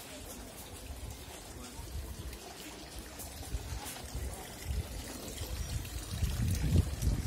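Water trickling and splashing from a tiered stone fountain into its basin, growing louder near the end, with a low rumble also building near the end.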